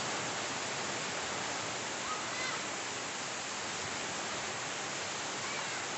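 Heavy rain falling steadily: an even, dense hiss of a downpour with no let-up.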